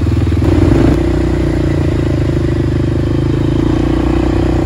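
Quad (ATV) engine running steadily under way on a dirt trail, heard from the rider's seat, briefly louder about half a second in.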